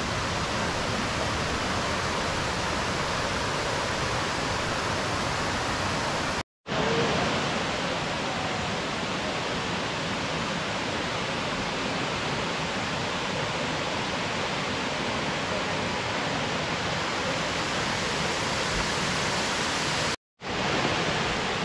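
Steady rushing of a tiered waterfall and its cascades into pools, an even wash of falling water. The sound cuts out completely for a moment twice, about six seconds in and near the end.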